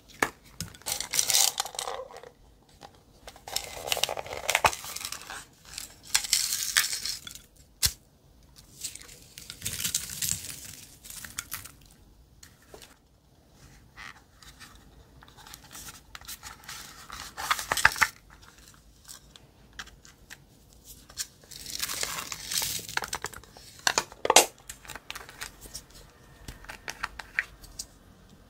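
Hands handling and opening small makeup and craft items, such as a printed card and a small glitter case: repeated bursts of crinkling and tearing, each a second or two long, with quiet gaps and a few sharp clicks between.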